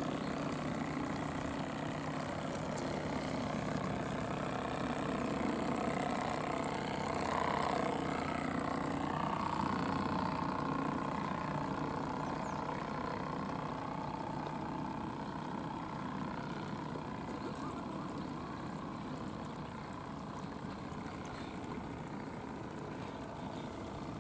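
Butane-fired model steamboat running on the water, a steady sound from its small steam plant that swells a little as the boat draws nearer, then eases.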